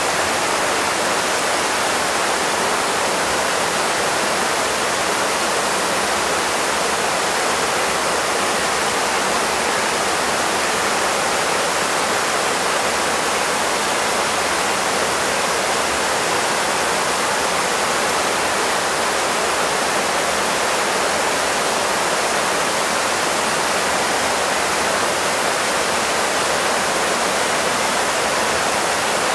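Fast river water rushing and churning over rocks in a steady, unbroken roar of white water.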